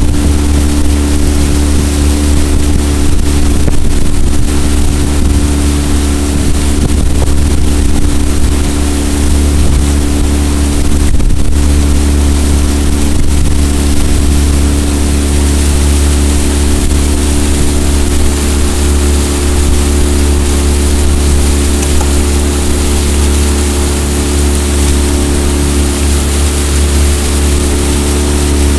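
Jon boat's outboard motor running at a steady speed while under way, a constant loud drone.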